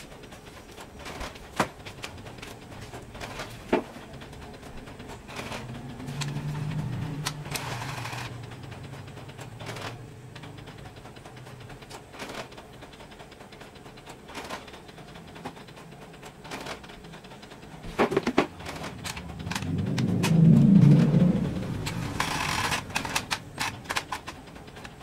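Scattered clicks and knocks of plastic parts as the opened-up Epson L120 inkjet printer's mechanism is handled. A louder low hum swells and fades about twenty seconds in.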